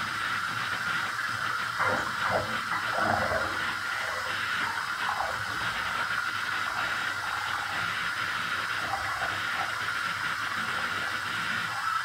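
Bath tap running into a filling bathtub, a steady rush of water, with some sloshing and splashing about two to three seconds in as a person in the tub shifts their legs.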